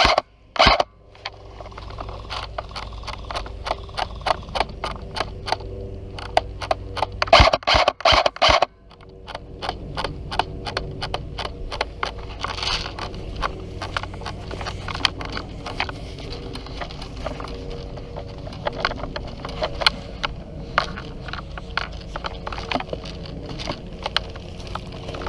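Crackling and scraping of a person moving through dry leaves and brush, with many small snaps throughout. Two loud bursts of rustling close to the microphone, one at the very start and one about seven to nine seconds in.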